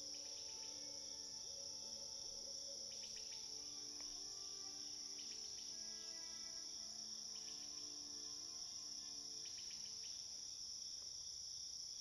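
Faint, steady chorus of crickets, with soft music of sustained notes beneath it and brief chirps every two seconds or so.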